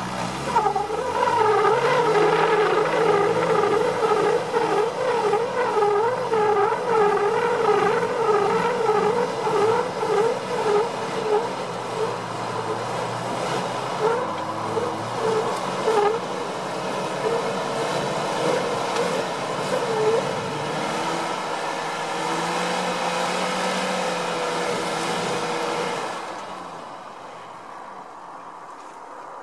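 Off-road 4x4 engine revved hard under load, its tyres spinning and squealing against bare rock in a wavering whine that pulses about twice a second, burning rubber. The revs and the squeal drop away near the end.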